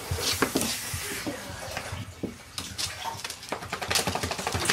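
A wet miniature dachshund's claws clicking and scrabbling irregularly on a vinyl floor as she dashes about and rubs herself along it.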